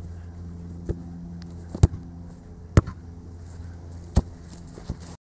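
A football being kicked on grass: five sharp thumps about a second apart, the middle three the loudest, over a steady low hum.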